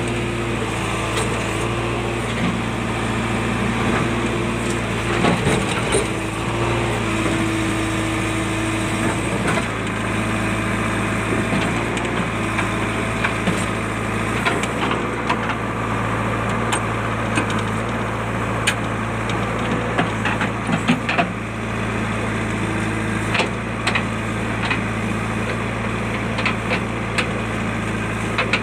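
A JCB backhoe loader's diesel engine running steadily at a constant pitch while it digs, with scattered knocks and clicks over the drone.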